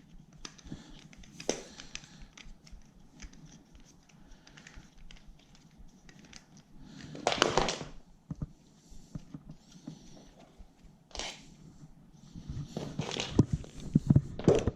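Packaging being handled and torn: rustling, crinkling and small clicks, with a few louder rustles near the middle and toward the end.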